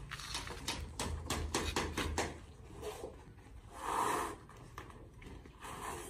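Sharp knocks and clacks in quick succession for about two seconds, then a short, duller sound about four seconds in and a weaker one near the end.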